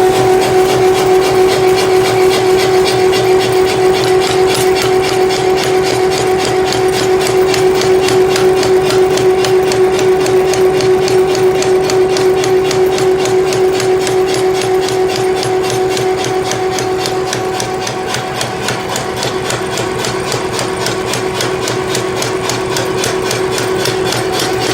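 Power hammer running, striking in a rapid, even rhythm over the steady hum of its drive. The blows ease a little in loudness past the middle.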